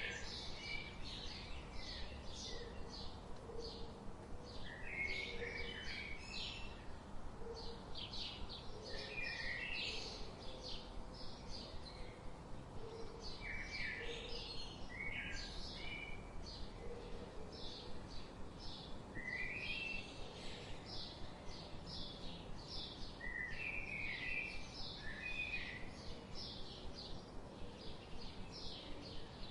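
Several songbirds chirping and twittering in dense, rapid short calls, over a steady low background hiss.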